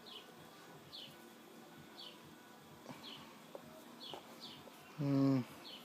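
A small bird chirping over and over, short high falling chirps about once a second, with a few faint clicks in the middle. About five seconds in comes a brief low hum, like a man's voice going "mm".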